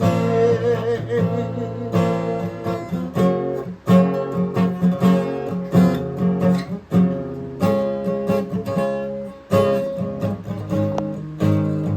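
Music: an acoustic guitar strumming chords in a song's instrumental passage.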